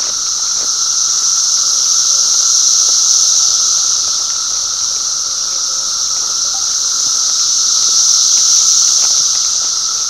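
Dense chorus of 17-year periodical cicadas: a steady, high-pitched buzz with a lower drone beneath it, slowly swelling and easing.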